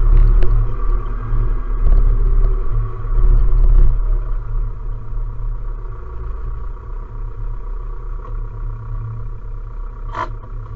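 Same Proxima tractor's diesel engine running, heard from inside the cab. It pulls harder for the first few seconds, then settles to a lower, steady run. A sharp click comes near the end.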